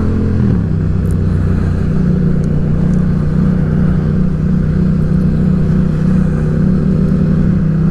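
Yamaha XSR700's parallel-twin engine running under way; its note drops about half a second in, then holds steady.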